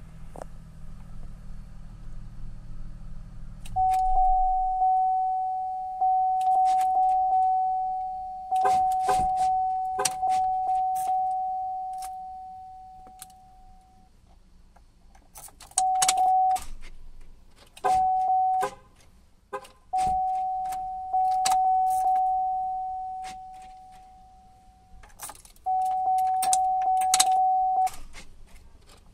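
Keys jangling and clicking as the ignition key of a 2005 GMC Envoy is worked, with a steady dash warning tone that switches on about four seconds in and then comes and goes in shorter spells. The engine does not start: a no-start fault that got worse after a new ignition switch was fitted.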